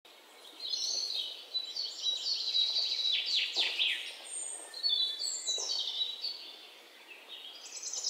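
Songbirds chirping and trilling in quick runs of high notes, with a short lull about halfway through and fading near the end.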